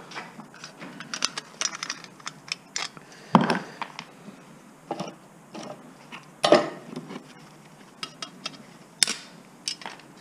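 Irregular metallic clicks and clanks from small scrap motor parts being handled and set down, with three louder clanks spread through.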